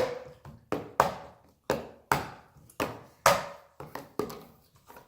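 A run of sharp taps or knocks, about two a second, each dying away quickly, with a few quicker softer taps near the end.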